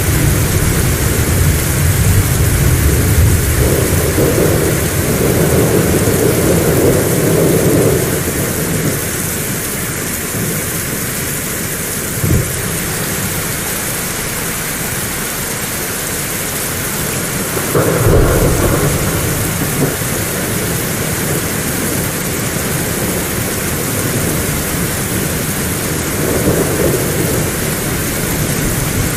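Heavy rain falling steadily, with thunder rumbling through the first several seconds. A brief low thud comes about twelve seconds in, another roll of thunder starts at about eighteen seconds, and a smaller one comes near the end.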